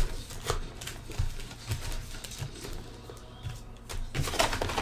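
Cardboard hobby box and trading-card packs being handled, with scattered clicks, taps and rustles.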